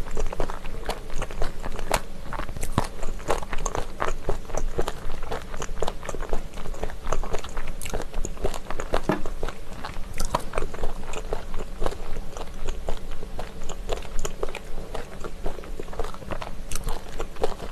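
Close-miked chewing of spicy stir-fried chicken feet, the cartilage crunching in many quick, irregular crisp clicks.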